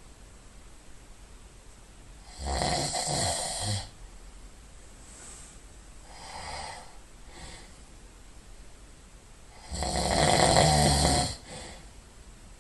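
A sleeping person snoring loudly: two long snores about seven seconds apart, each lasting about a second and a half, with a softer breath between them.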